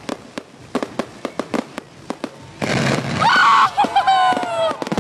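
Fireworks going off at close range. First comes a rapid run of sharp crackling pops. About two and a half seconds in, it gets much louder: a rushing hiss with several high whistles that slide down in pitch.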